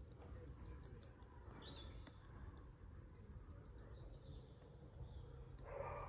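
Near silence, with faint high bird chirps in quick short runs every second or two over a low background rumble.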